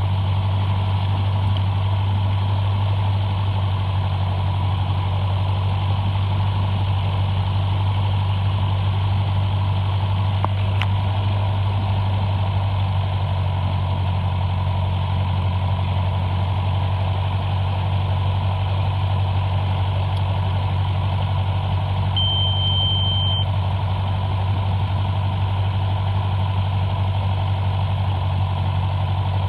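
Cessna 172's piston engine and propeller running steadily at low power, a loud constant drone as heard inside the cabin. About two-thirds of the way through, a single high beep sounds for a little over a second.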